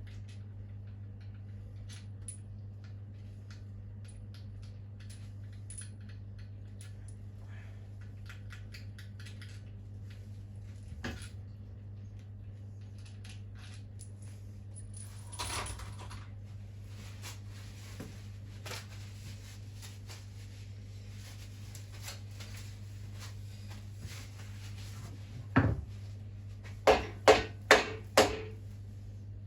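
Hand tools and metal engine parts being handled while the bottom end of an engine is stripped, with scattered light clicks and a knock. Near the end come a louder knock and then four sharp, ringing metal strikes in quick succession, over a steady low hum.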